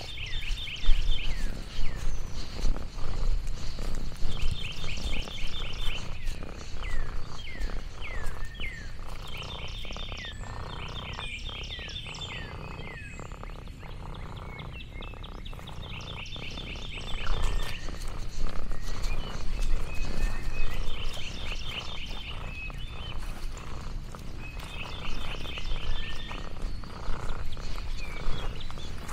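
Outdoor animal calls: short pulsed trills repeating every few seconds, with quick falling chirps between them in the first half, over a steady low rumble and scattered clicks.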